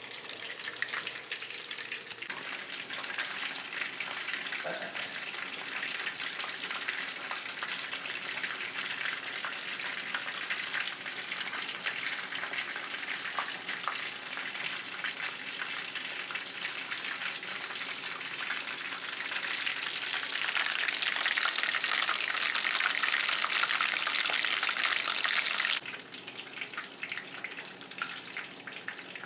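Chicken fritters shallow-frying in hot oil in a skillet: a steady, dense crackling sizzle. It swells louder about two-thirds of the way through, then drops off suddenly to a fainter sizzle near the end.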